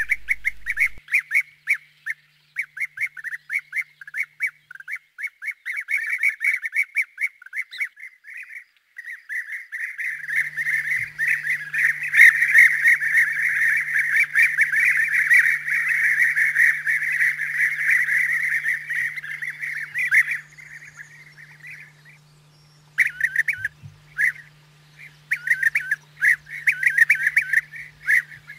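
European bee-eaters calling, short rolling notes repeated in quick succession. About ten seconds in the calls thicken into dense, overlapping calling for some ten seconds, then break up into scattered calls again.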